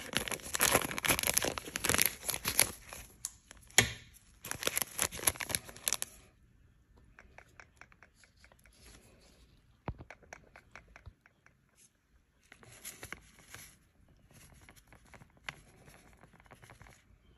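Plastic foil seasoning packet crinkling loudly as it is cut open with scissors, in two bursts over the first six seconds. Then quieter, scattered crinkling as the packet is handled and the ground spice shaken out of it.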